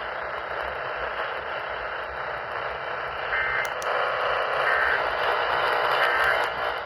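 Steady radio static hiss from weak reception. About three seconds in, faint short data bursts of an Emergency Alert System SAME header start coming through, about one every second and a half.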